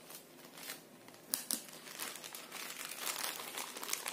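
Plastic courier mailer crinkling as it is handled and pulled open by hand, with a sharp click a little over a second in and busier crinkling in the second half.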